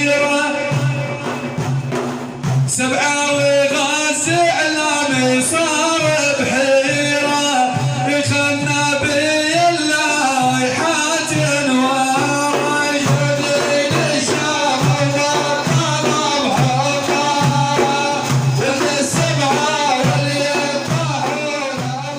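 Music from a madih praise-song performance: a bending melodic line with singing over a steady beat, starting to fade out near the end.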